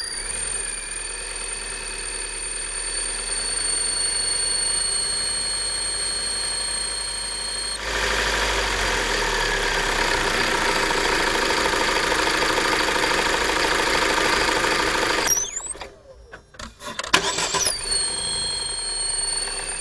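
Opel Astra H 1.8 XER four-cylinder petrol engine running, with a steady high-pitched whistle over it, of the kind the owner traced to the water pump. About 15 seconds in, the sound drops away briefly and the whistle glides up and down before it steadies again.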